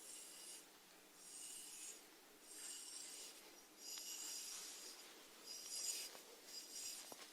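Faint rhythmic rasping from snails, about six short scratchy bursts roughly a second apart, with a couple of tiny clicks near the end.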